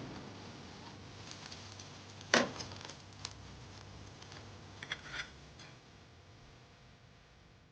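A few light knocks and clicks, the loudest about two and a half seconds in, with a pair of quicker clicks near five seconds, over a faint background that slowly fades.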